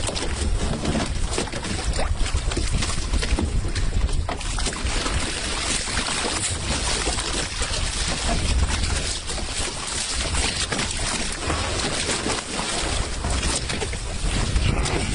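Gusty wind buffeting the microphone, a fluctuating low rumble over a steady rushing hiss.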